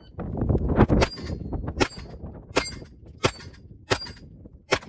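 Gunshots fired in an even string, six sharp bangs about three-quarters of a second apart, each leaving a short metallic ring, after a low rumble in the first second.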